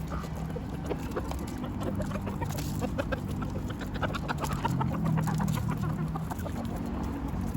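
Chickens clucking as they feed, a busy run of short, sharp calls and clicks.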